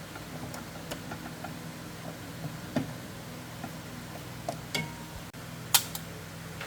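Light, scattered clicks and taps of small parts being handled over a steady low hum, with one sharp click about six seconds in.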